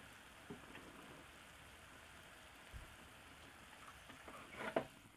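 Sugar syrup boiling in a stainless-steel saucepan: a faint, steady fizzing of bubbles. A short knock sounds near the end.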